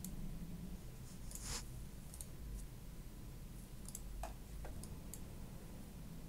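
A few faint, scattered clicks over a low steady hum.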